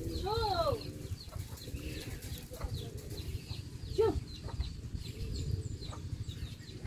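Chickens clucking, with a drawn-out rising and falling call near the start and a short sharp one about four seconds in, over many brief high bird chirps and a steady low rumble.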